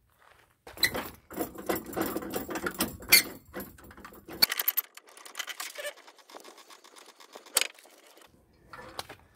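Trailer safety chains and hitch hardware clinking and rattling as they are handled during hook-up. The rattling is busy for the first few seconds, then gives way to a few scattered sharp metal clicks.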